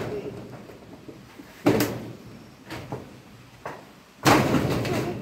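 Irregular knocks and bangs from work fixing metal roofing sheets, the loudest about four seconds in and trailing into a rattle that lasts about a second.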